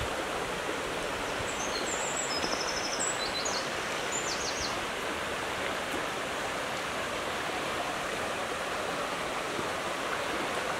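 Steady rush of flowing and falling water from a mountain stream and waterfall. A few faint high chirps sound above it about two to five seconds in.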